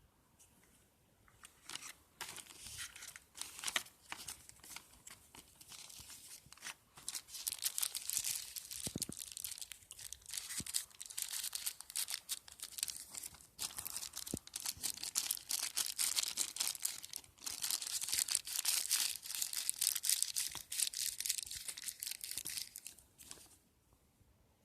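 Plastic packaging crinkling and rustling as it is handled and pulled open, in an irregular crackle that grows louder in the second half and stops shortly before the end.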